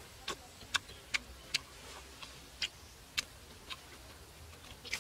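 Roasted pork being eaten by hand: a string of short, sharp crunching clicks, about two a second.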